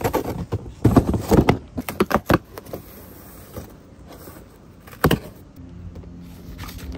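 Cardboard box being opened and its contents handled: a quick run of knocks and scrapes in the first two and a half seconds, then one sharp knock about five seconds in.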